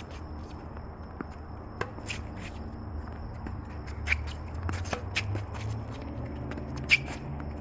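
Tennis rally on a hard court: sharp racket strikes and ball bounces a second or two apart, the loudest near the end, with shoes scuffing on the court between them. A low steady hum runs underneath.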